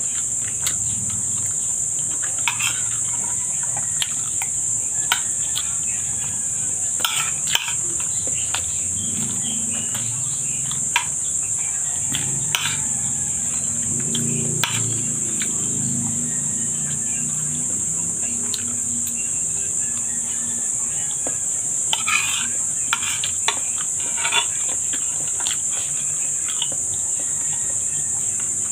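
Crickets chirring steadily and high-pitched throughout, with scattered sharp clicks of a metal spoon against a ceramic bowl and eating sounds close to the microphone.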